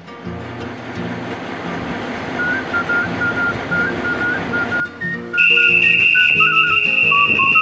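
A whistle blown in one long, steady, shrill blast starting about five seconds in, over quiet background music.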